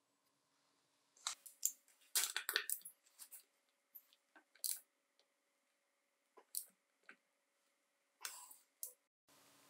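Socket wrench with a Torx bit clicking and scraping in short irregular bursts as it works a screw loose on a chainsaw's engine housing, with light metal clinks.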